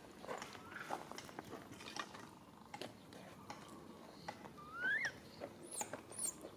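A baby monkey's short squealing calls, one rising sharply about five seconds in and two thin high ones near the end, over scattered clicks and rustles.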